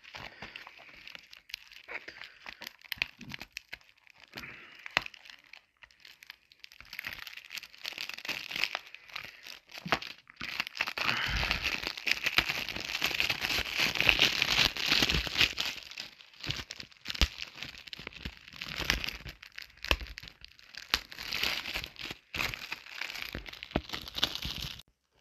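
Plastic shrink-wrap being picked at and peeled off a Blu-ray case: scattered sharp clicks and scratches at first, then steady crinkling and crackling of the film from about ten seconds in, easing briefly and picking up again near the end.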